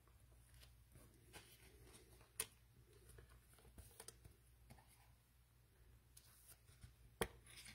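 Faint handling of trading cards and packs: soft ticks and light rustling, with a sharper click about two and a half seconds in and another near the end.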